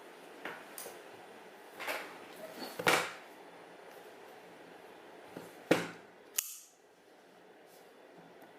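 Phone retail box and packaging being handled: a few sharp clicks and snaps, the loudest about three seconds in and two more close together near six seconds, then only faint handling.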